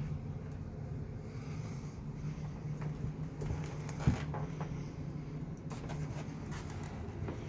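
Domestic cat purring steadily while being petted, with the scratchy rustle of a hand stroking its fur and one short knock about four seconds in.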